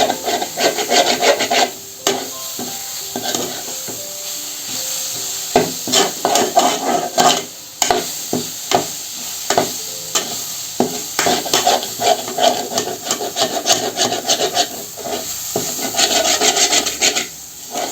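A ladle stirring and scraping grated coconut frying in sesame oil in a pan, with a faint sizzle: the paste being sautéed and kept from sticking to the bottom as it turns golden. The scraping strokes are sparse for the first few seconds, then come about twice a second.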